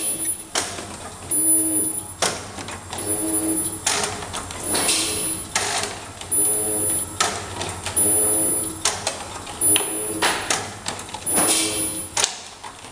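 Ultrasonic welding machine for packaging cylinders running through repeated sealing cycles: each cycle, roughly every one and a half to two seconds, brings a sharp burst and a thin high whine that switches on and off.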